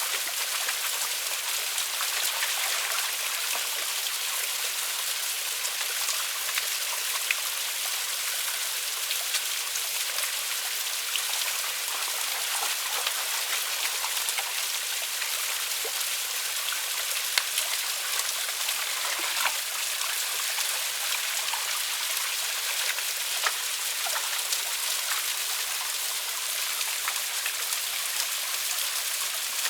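Water running steadily over a small waterfall, with scattered sharp splashes and drips.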